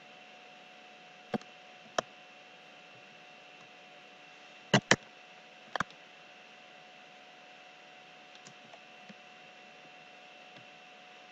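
About five sharp clicks, single ones early, then a quick loud pair and one more just after, over a steady low hiss with a faint steady whine.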